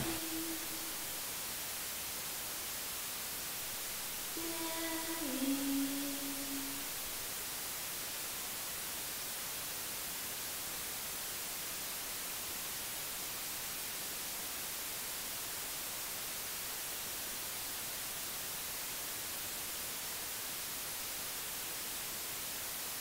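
Steady hiss of room tone. About four seconds in comes a brief held pitched sound that steps down in pitch once before it fades.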